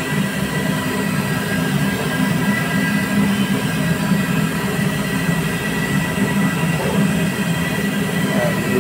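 Gulab jamun dumplings frying in a wide pan of hot ghee, sizzling and bubbling steadily over a constant low rumble.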